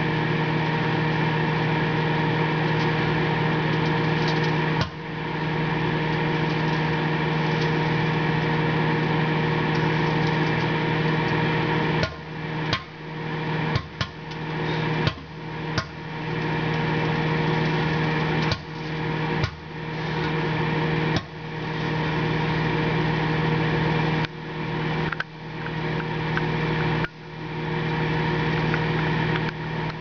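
Microwave oven running with a steady hum, while grubs heating inside it burst with sharp pops: one about five seconds in, then about a dozen more coming irregularly through the second half.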